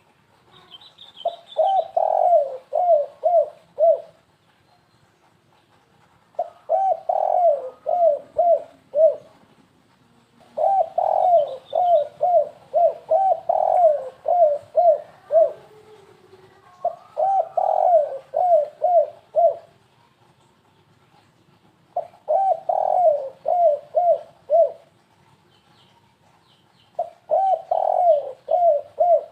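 Spotted dove (tekukur) cooing in the stuttering 'gagap' style: six bouts of quick, low coo notes, each a run of five to nine short notes, a few seconds apart. A few faint high chirps come in twice.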